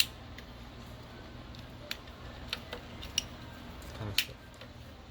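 Plastic clicks and ticks from a wiring plug being worked off a car's body control module: a sharp click at the start, another about four seconds in, and lighter ticks between.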